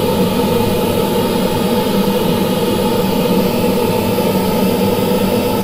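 Steady pink noise from the measurement software's signal generator, played through a Promax PL210AR line array loudspeaker to measure its frequency response. It cuts off suddenly at the end.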